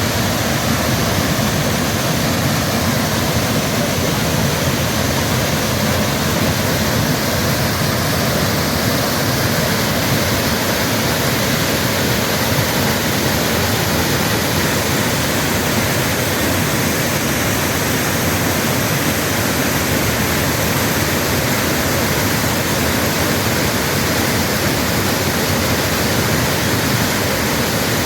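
Waterfall rushing, a loud, steady roar of falling water without a break.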